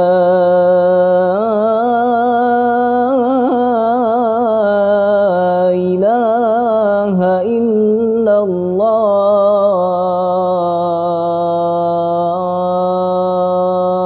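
A boy's voice chanting the closing phrase of the adhan, "lā ilāha illā-llāh", as one long unbroken melismatic line. It winds up and down in ornamented runs and ends on a long held note.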